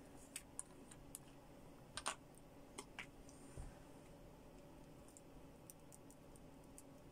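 Faint, sparse small clicks and taps as a clear plastic vape cartridge is handled and turned in the fingers, with near silence between them; the loudest come about two seconds in.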